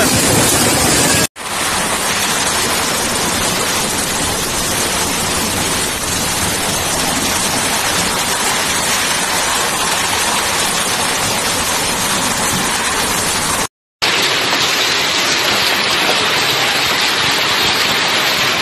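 Heavy rain and hail falling steadily in a severe storm: a dense, even hiss. The sound breaks off for an instant about a second in and again about fourteen seconds in, and it is brighter after the second break.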